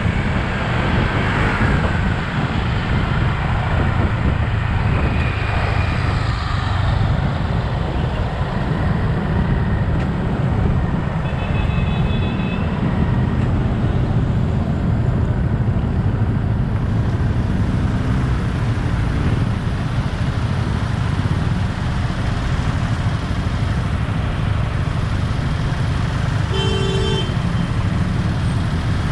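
Yamaha XSR 155's single-cylinder engine running on the move, with steady wind and traffic noise. A vehicle horn toots briefly twice, about twelve seconds in and again near the end.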